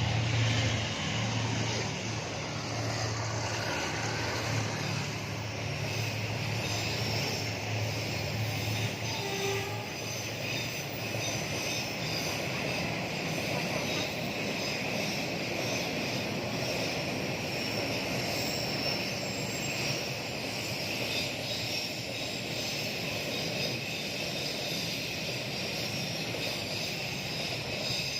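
D19E diesel-electric locomotive passing with a low engine drone that fades after about ten seconds. Then container wagons roll by with a steady rumble and a high, steady ringing of wheels on the rails.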